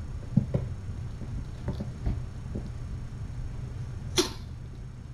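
Kittens playing and wrestling on the floor: a few soft knocks and thumps, then one brief sharp noise about four seconds in, over a steady low hum.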